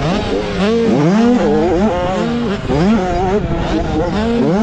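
A 65cc two-stroke motocross bike's engine, heard from on board, revving hard and dropping back again and again as the throttle is worked and gears change, its pitch rising and falling several times.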